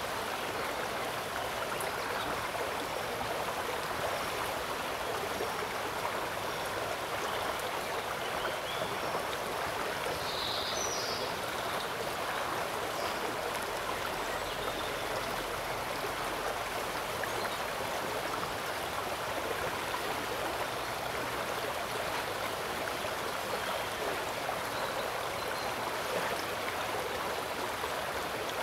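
Steady rushing and trickling of flowing water in a shallow estuary channel, an even sound without pauses.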